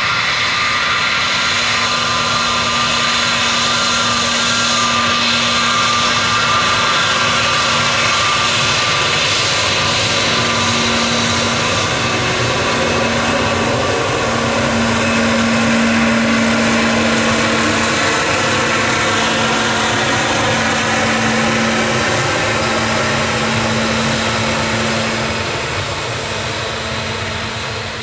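Jet airliner's engines running loud and steady, with a low hum and faint whining tones that slowly slide in pitch as the aircraft moves, easing off near the end.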